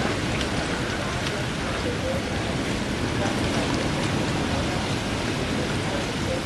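Hurricane wind and steady heavy rain: an even, steady rushing noise with no lulls.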